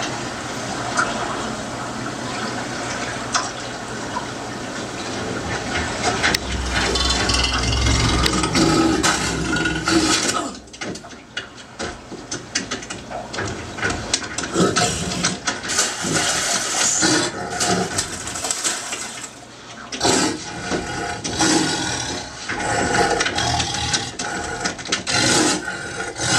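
Film soundtrack water effects: a dense rush of surging water with a deep rumble swelling in about six seconds in. After about ten seconds it turns into uneven, separate surges and hits.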